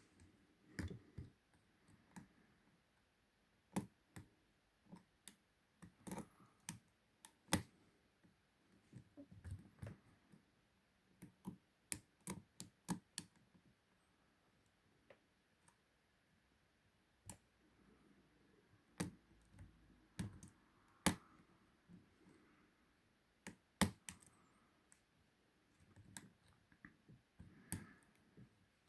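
Faint, irregular clicks of a lock pick and tension wrench working inside a Ruma 50 mm padlock as the pins are probed and set.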